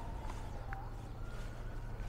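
Emergency vehicle siren wailing: a slow falling tone that bottoms out a little under a second in, then starts to rise again, over a steady low rumble.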